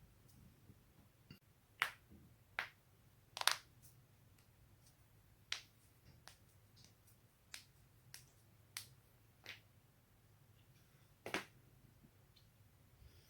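Neck joints cracking: about a dozen short, sharp pops at uneven intervals as the neck is twisted, the loudest a quick double crack about three and a half seconds in.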